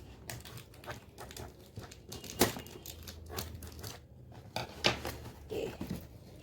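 Packaging being opened by hand: irregular crinkling and tearing, with two sharper, louder snaps about two and a half and five seconds in.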